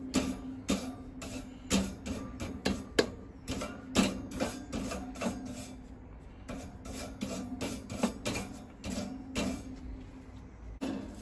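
Wire brush scrubbing a dirty barbecue grill grate, metal bristles scraping the bars in quick repeated strokes.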